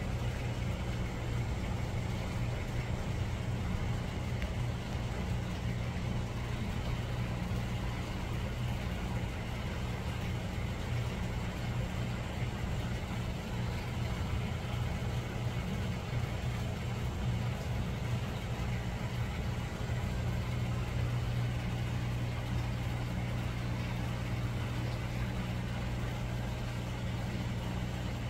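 Steady low electrical hum with an even hiss, from running aquarium equipment.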